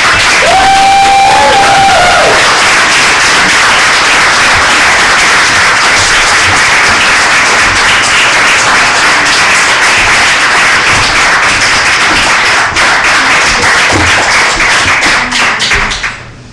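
Audience applauding loudly, with one voice calling out briefly near the start; the applause dies away near the end.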